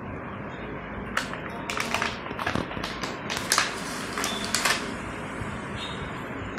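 Thin clear plastic blister packaging crackling and crinkling as a hand grabs and shifts it. The crackles come as an irregular cluster of sharp snaps for about four seconds, starting about a second in, over a steady background hiss.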